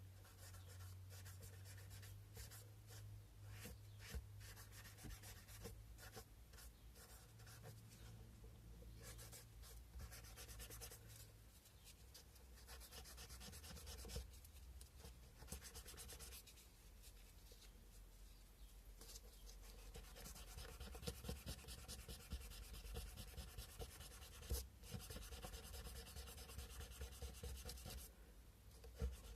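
Sandpaper rubbed back and forth by hand on a cow-bone carving: faint, fast scratching strokes with a few short pauses.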